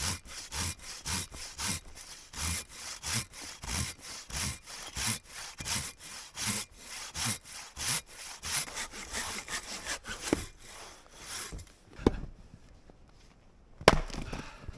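Silky Katanaboy 650 large folding pruning saw cutting through a log with brisk strokes, about two a second, stopping about eleven and a half seconds in. Two sharp thumps follow near the end.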